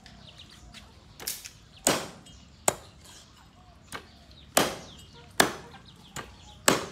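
Steel meat cleaver chopping raw chicken on a round wooden chopping block: about eight sharp, irregularly spaced chops, the heaviest trailing off briefly.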